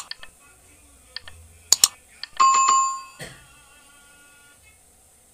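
Subscribe-button animation sound effect: a few sharp mouse clicks, then a single bell-like ding a little over two seconds in that rings out over about a second, followed by one more click.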